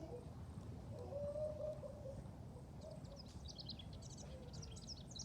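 A songbird singing a quick run of short, high chirps starting about halfway through, over a steady low outdoor rumble.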